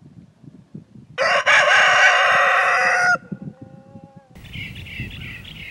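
A rooster crowing once: a loud call of about two seconds, starting a second in, that ends in a fainter trailing note.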